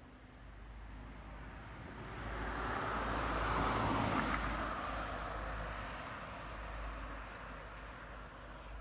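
A road vehicle passing the level crossing: its tyre and engine noise swells to a peak about four seconds in, then fades away slowly.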